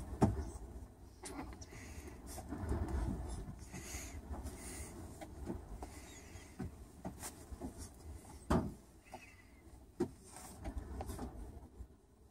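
Kitten and puppy wrestling on blankets: soft rustling of fabric and fur with scattered light knocks and clicks, the sharpest about eight and a half seconds in.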